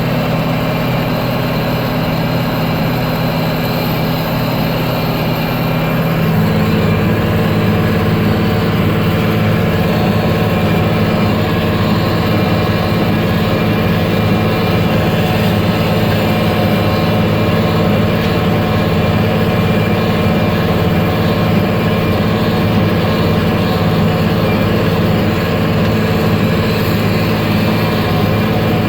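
Case IH Maxxum 5240 tractor's diesel engine running steadily under load while it drives a Case IH 8530 small square baler. About six seconds in, the engine note shifts and gets a little louder, then holds steady.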